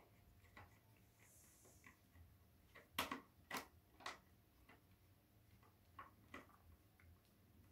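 Phillips screwdriver turning a screw out of a plastic router case: faint, irregular small clicks, the two loudest about three seconds in.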